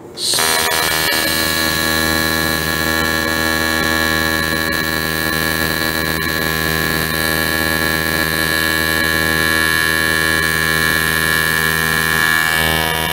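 AC TIG welding arc on a cast aluminum motorcycle engine case, set to about 80 Hz AC frequency, around 70 balance and about 125 amps, laying the last of the weld. It is a steady, fixed-pitch buzz that strikes just after the start and holds level, easing slightly near the end.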